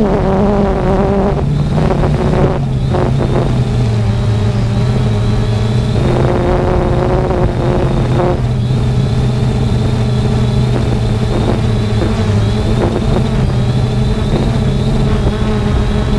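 3DR Solo quadcopter's four electric motors and propellers humming steadily, picked up by the onboard camera, with several tones that step up and down in pitch every few seconds as the motors correct in gusty wind. A low wind rumble on the microphone sits underneath.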